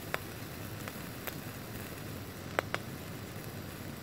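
Bacon sizzling in a frying pan on a portable gas camping stove: a steady hiss with sharp pops and spits, one just after the start and two in quick succession about two and a half seconds in.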